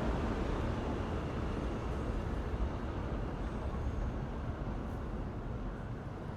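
Steady low rumbling noise with no distinct events, slowly fading away.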